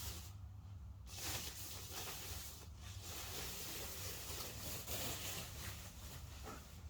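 Faint rustling and scraping of monitor stand parts being handled and fitted, with a few light ticks, over a steady low hum.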